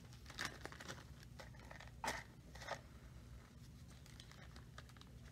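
Faint crinkling of a plastic zip-top bag and handling of a matchbox, with a short sharp scratch about two seconds in: a wooden match being struck on the box.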